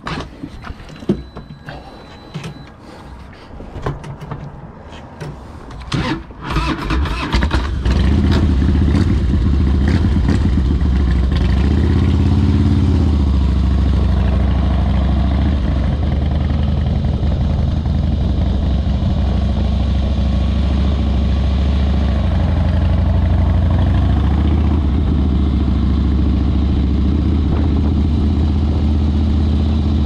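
Clanks and knocks, then about seven seconds in a motorcycle engine starts and settles into a steady idle, rising briefly a few seconds later.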